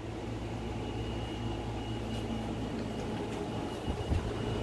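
Window air-conditioning unit running with a steady hum and a thin high whine, growing louder toward the end. A couple of soft knocks about four seconds in.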